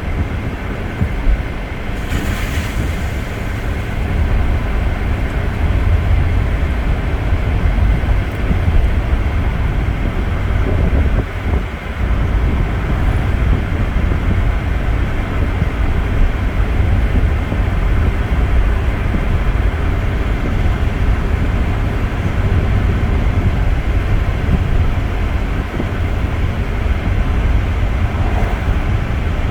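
Steady low rumble of a car on the move, road and wind noise, with a short hiss about two seconds in.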